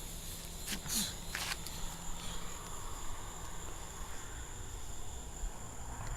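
Insects, crickets by the sound of it, trilling steadily in a high continuous tone. A few brief rustling noises come about a second in.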